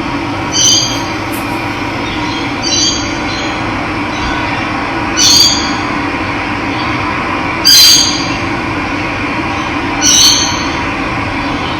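Steady rush of running water, with a bird giving a short, high call five times, about every two and a half seconds; the calls are the loudest sounds.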